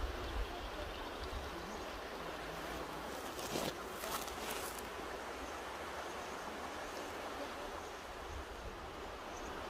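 Mountain river rushing steadily over rocks, an even hiss of running water, with a brief louder burst of noise about three and a half seconds in.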